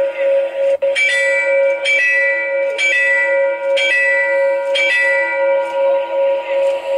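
Electronic railway-crossing warning-bell (genta) sound played by a miniature HO-scale level-crossing controller. It gives a bell stroke about once a second over a steady ringing tone, then cuts off suddenly at the end.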